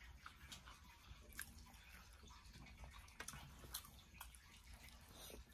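Faint chewing of a mouthful of taco, with scattered small, soft mouth clicks.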